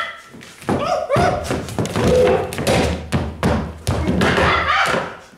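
A performer's ape-like vocal shrieks and hoots, mixed with thumps of feet jumping onto a wooden chair and the stage floor. It all stops abruptly near the end.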